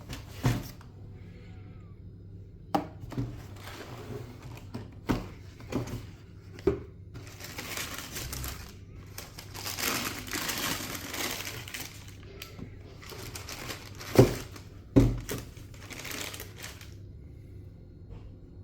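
Handling and opening a sneaker box: a series of sharp knocks and taps, with several seconds of paper crinkling in the middle.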